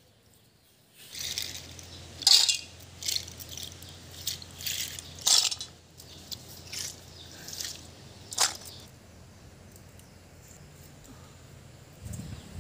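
Big snail shells being cracked open on hard earth: a series of sharp, irregular cracks and clicks, starting about a second in and stopping after about eight seconds.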